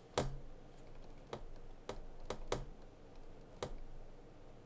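About six sharp, irregularly spaced clicks and light taps of small hard parts and tools being handled while the RC drift car's front steering linkage is adjusted by hand.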